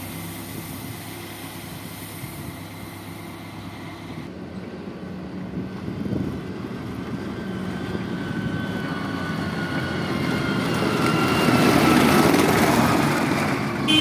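Diesel engine of a backhoe loader running at work, then, after a sudden change about four seconds in, a JCB telescopic handler's diesel engine growing louder and rising in pitch as it drives up close and past, loudest near the end.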